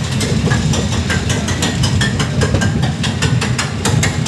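Roller coaster train climbing the lift hill on its chain lift: a steady mechanical rumble with rapid, evenly spaced clacking as the lift chain pulls the cars up.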